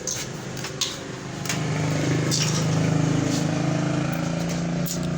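Small motorcycle engine running steadily, growing louder about a second and a half in, with a few light clicks in the first seconds.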